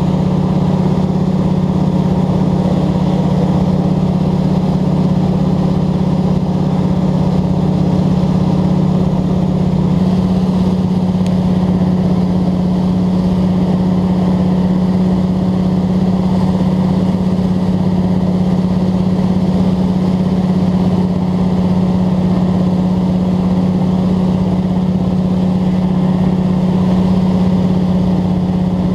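Single-engine bush plane's piston engine and propeller running steadily in level flight, a constant loud drone with a strong low hum.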